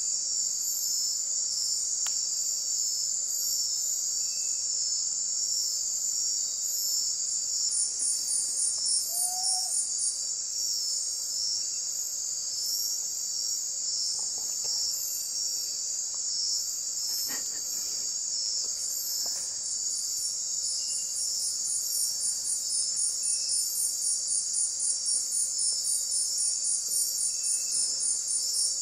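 Night insect chorus: a steady, high-pitched shrilling of crickets and other insects. A second insect adds a rapid pulsing trill above it about eight seconds in and again for the last third.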